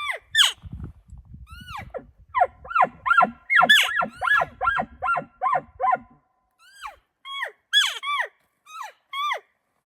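Several animals giving short, high yelping calls that fall sharply in pitch. They come a few at a time, then crowd together and overlap for a few seconds in the middle, then space out again. A low rumble runs under the first part.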